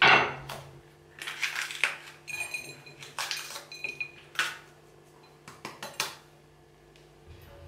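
A kitchen knife cuts through a red bell pepper onto a wooden chopping board with a loud sharp crack. Then comes a run of short crisp snaps and rustles as the pepper halves are pulled apart and cored by hand over a porcelain plate, with a few light ringing clinks of the plate and knife.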